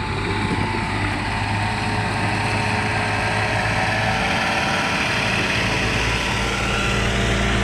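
Engine of a truck-mounted forklift running steadily as it drives across gravel toward and past close by, getting slightly louder as it nears.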